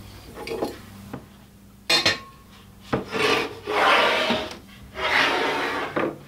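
Wooden lazy susan shelf being handled on a cabinet top: two sharp knocks, then two long scraping, rubbing sounds as the shelf slides against the surface while it is lifted off and set back down.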